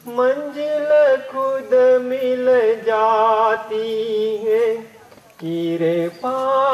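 A voice singing a Hindi devotional bhajan in long held, wavering notes, with a brief break about five seconds in.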